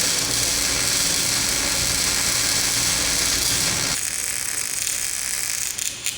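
Wire-feed arc welding: a steady crackling, frying hiss from the arc. About four seconds in the sound changes and gets a little quieter, with less low rumble.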